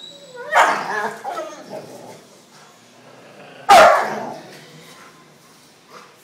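A large dog barking at a provoking helper during guard-and-protection training: two loud, sudden barks, one about half a second in and a louder one about three seconds later.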